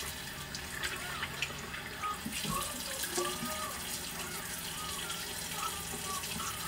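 Bathroom sink tap running, with water splashed by hand to rinse a foaming face cleanser off the face; a few sharper splashes come in the first few seconds.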